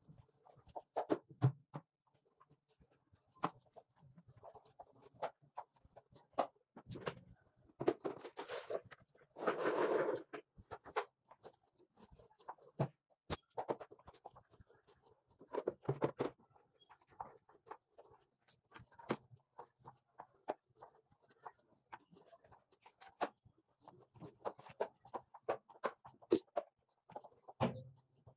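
A spin mop's string head swishing and scuffing across a ceramic tile floor in irregular strokes, with scattered light knocks and taps.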